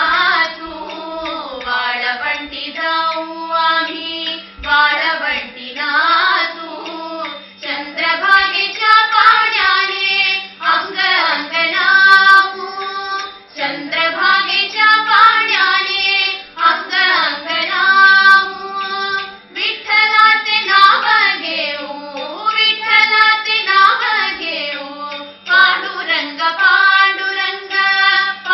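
Several women singing a devotional song together in unison, amplified through a microphone, over a steady low drone held underneath.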